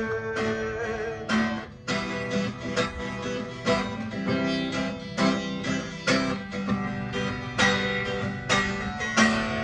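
Instrumental break in a gospel worship song: strummed acoustic guitar keeping a steady rhythm of about two strokes a second. The last sung note of the line dies away about a second in.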